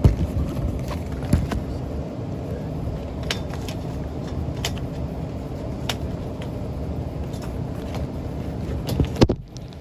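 A steady low mechanical rumble with scattered clicks and knocks, from a filter being fitted into an HVAC unit and its panel handled. There is a louder knock near the end.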